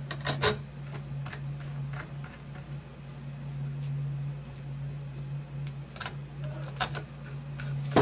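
Small screws and a screwdriver clicking and tapping against an XFX RX 480 graphics card's back plate as the screws are started by hand: scattered sharp clicks, loudest just after the start and again about six and seven seconds in, over a steady low hum.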